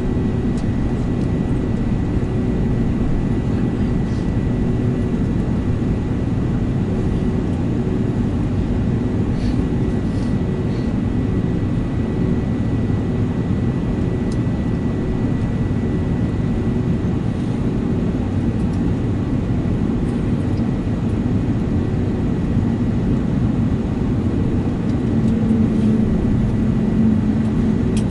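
Cabin noise inside an Airbus A321neo taxiing slowly to its stand: a steady low rumble of the Pratt & Whitney geared turbofans at idle with air-conditioning hiss and a faint steady whine. The rumble swells slightly near the end.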